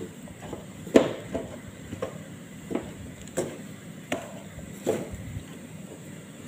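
Wooden spatula knocking and scraping against a non-stick cooking pot while stirring thick mashed potato filling, in irregular knocks about two a second.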